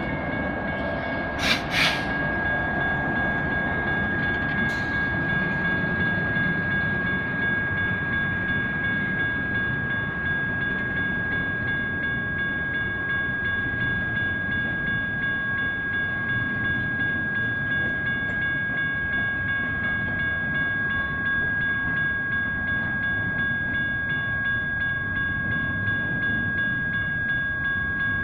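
Railroad grade-crossing bells (General Signals Type 1 mechanical bells) ringing continuously over the rumble and rattle of a freight train rolling past: a locomotive, then double-stack container cars. About two seconds in come two sharp bangs.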